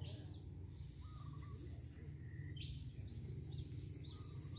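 Outdoor ambience: a steady low rumble and a steady high hiss. From about halfway through, a bird calls in a quick run of short, high chirps, about three or four a second.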